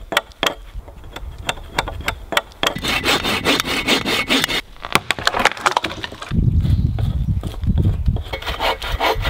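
Hand saw cutting through a wooden pole: repeated rasping strokes with sharp clicks of the teeth in the wood. The strokes grow louder and deeper from about six seconds in.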